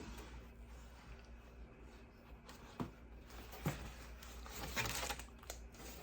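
Faint rustling and handling of paper and cardboard packaging, with a couple of light knocks and a short rustle near the end.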